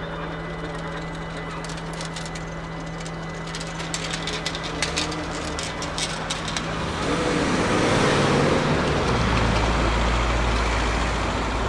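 Level-crossing half-barriers rising with a steady low motor hum that stops a little over halfway through, along with a scatter of light clicks. A car then drives over the crossing, its engine and tyre noise growing louder near the end.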